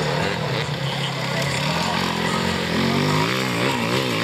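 Dirt bike engine running at low revs, then revved up and down several times in quick succession in the second half.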